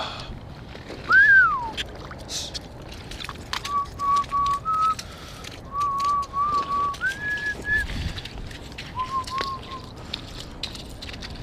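A person whistling a tune: one loud swooping note, then a string of short notes that step up and down in pitch, with one longer, higher note held about seven seconds in.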